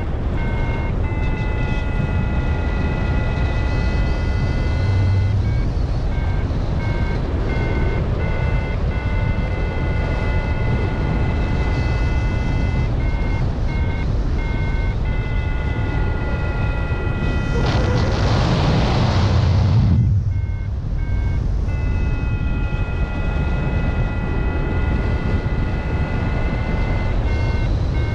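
Wind rushing over the microphone in flight, with a paragliding variometer sounding a steady-pitched electronic tone, sometimes as short beeps and sometimes held for several seconds. About two-thirds through, a louder gust of wind lasts a couple of seconds and covers the tone.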